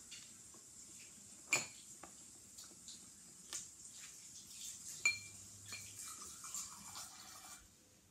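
Plastic syringe clinking and tapping against glass tumblers as water is drawn up and squirted from one glass into another. Scattered light clicks, with two sharper clinks about a second and a half in and about five seconds in.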